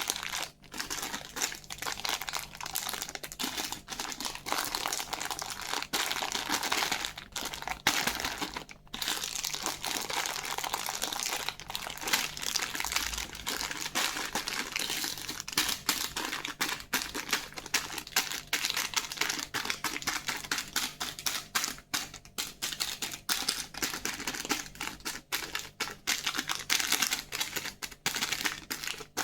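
Plastic candy wrappers crinkling and crackling continuously as sweets and lollipops are handled and unwrapped, with many small sharp crackles.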